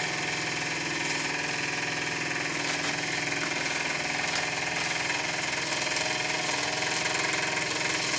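Microcosm M1 model marine steam engine, a single-cylinder double-acting engine of 9.5 mm bore by 15 mm stroke, running steadily on steam at around 8 pounds pressure with a continuous hissing clatter. It is making more noise than normal, which the owner puts down to the engine not being fastened down.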